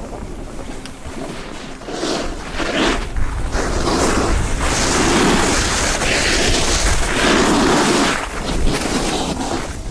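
Skis sliding and carving turns on a snow slope: repeated swooshing scrapes about once a second that grow louder from about two seconds in. Wind rumbles on the microphone underneath.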